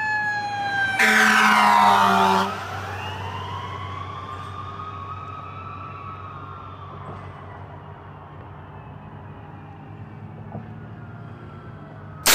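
A siren-like wailing tone that slowly rises and then sinks back over several seconds, over a low steady hum, after a louder burst that starts and stops abruptly about a second in.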